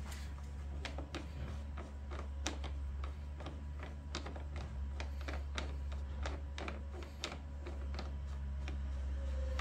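Light, irregular clicking and ticking, two or three a second, as a metal bar-end weight is unscrewed by hand from a motorcycle handlebar, over a steady low hum.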